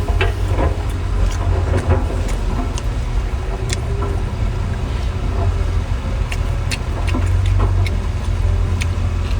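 Seafood-eating noises, a few sharp clicks of shells or utensils, over a steady low rumble.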